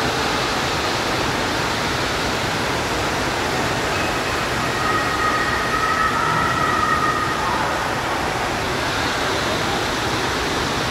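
Steady rushing and splashing of water from indoor water-park features: the pouring mushroom fountain and small floor bubbler jets, heard in a large indoor pool hall.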